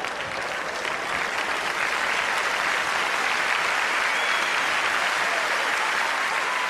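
Live theatre audience applauding, swelling about a second in and then holding steady.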